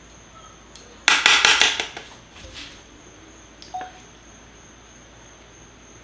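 Metal kitchen tongs clattering in quick succession against a stainless steel pot, about a second in, followed by a few lighter clinks and one short ringing clink of a metal spoon against the skillet.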